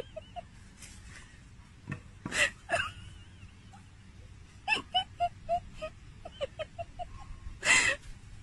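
Small terrier barking in a few sharp, separate barks, the loudest near the end.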